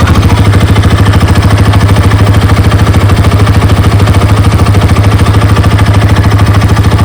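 Bajaj Pulsar NS200's single-cylinder engine idling steadily with a rapid, even exhaust pulse, run on fresh oil and a new filter to check for leaks.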